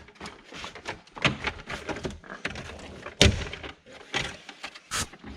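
Irregular clicks, rattles and knocks of hands working on the plastic trim and wiring under a pickup truck's dashboard, with a heavy thunk about three seconds in and another sharp knock near the end.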